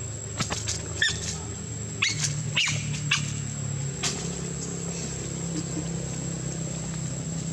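Short, sharp animal calls, several in quick succession in the first three seconds and one more about four seconds in, over a steady low hum.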